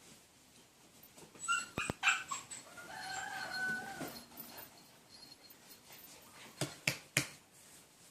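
A dog yelping and whining: sharp high yelps about a second and a half in, then a drawn-out whine, followed by three sharp knocks near the end.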